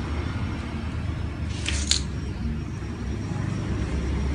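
Steady low rumble of road traffic, with one short scratchy rustle about a second and a half in.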